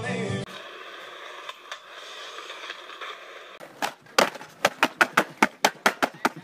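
Skateboard on concrete: a rapid run of sharp clacks, about five a second, starting about four seconds in, after a steady hiss. A short tail of music is heard at the very start.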